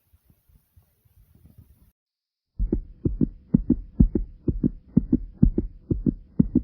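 A person's heartbeat: faint low thumps at first, then after a brief silent break about two seconds in, loud, fast lub-dub beats, beating hard, over a faint steady hum.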